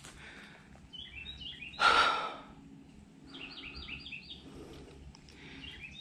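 A small songbird calling in quick runs of short high notes, once about a second in and again midway. About two seconds in, a short, loud, breathy whoosh close to the microphone.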